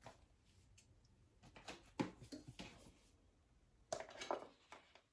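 Faint rustling and a few soft clicks and knocks as a person shifts in her seat and handles things out of sight, in two short spells with quiet between.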